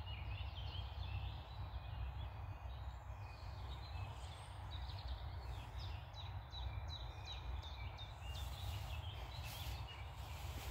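Several birds singing and calling, with a run of short, evenly repeated high notes about five to eight seconds in, over a steady low rumble.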